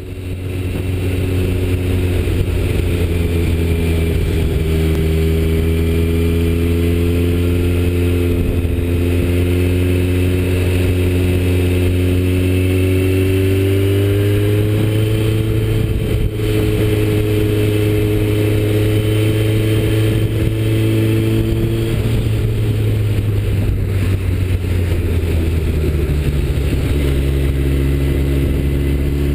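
Sport-touring motorcycle engine running under way, heard from the rider's own bike, over a steady rush of wind and road noise. The engine note climbs slowly, steps up about halfway through, drops back around three-quarters of the way in, and changes again near the end as the rider works the throttle through the bends.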